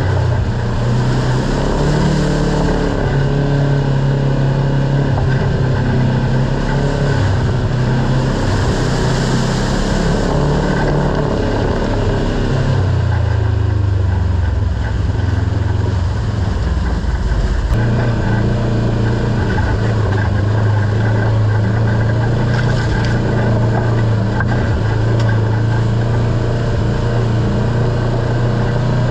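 Kawasaki Teryx KRX side-by-side's parallel-twin engine running on the move. The engine note drops about halfway, stays low for a few seconds, then picks up and holds steady.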